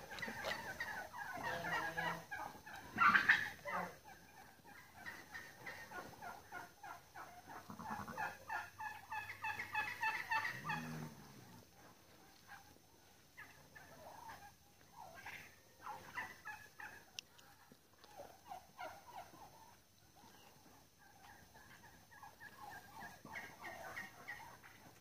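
Farmyard fowl calling in bursts of rapid, warbling, pulsed calls. The calls are loudest in the first few seconds and again about eight to eleven seconds in, with fainter scattered calls after that.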